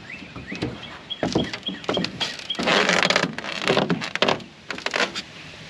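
Footsteps and knocks on the aluminum floor of a Lund 1648 jon boat as a person walks about in it, with a brief rustling scrape about three seconds in.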